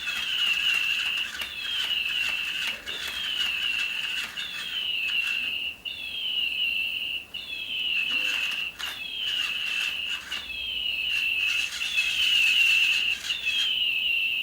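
Electronic toy bird chirping over and over: a quick falling whistle that settles into a held high note, repeating about every second and a half.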